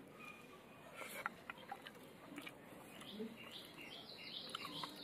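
A small bird chirping: a quick run of short, high notes that starts about three seconds in. A few faint clicks come before it.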